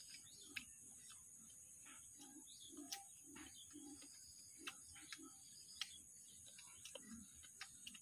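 Crisp, irregular crunches and soft chewing of a bite of raw green guava, heard close up.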